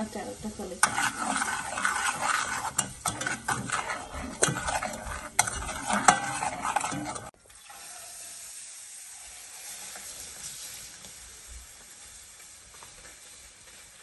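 Sugar heating into caramel in an aluminium pan on a gas stove, stirred and scraped with a metal utensil: clicks and scrapes over a sizzle. About seven seconds in it cuts off abruptly to a quieter steady hiss as the pudding mix is poured onto the caramel.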